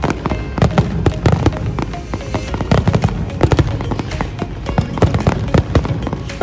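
Fireworks going off in quick, irregular succession: many sharp bangs and crackles over a low rumble.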